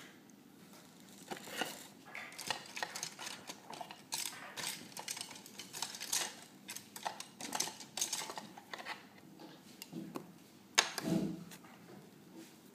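Reed pens and small tools clicking and rattling against each other and the sides of a wooden pen box as a hand rummages through it, a fast irregular run of small clicks, with one sharp knock near the end.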